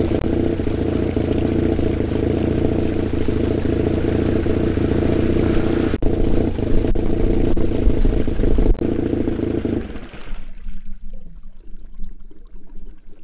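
Gold mining pump's small engine running, with water gushing from its outlet as it empties the swamped boat, over the idling outboard; a few knocks on the boat's hull come as someone climbs aboard. About ten seconds in, the pump cuts off suddenly, leaving only a faint low engine hum.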